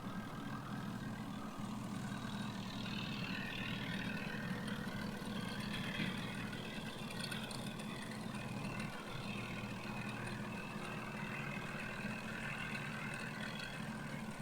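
Mahindra Yuvo 575 tractor's diesel engine running steadily. About two to three seconds in, an uneven, higher mechanical whirring and rattling joins it and carries on.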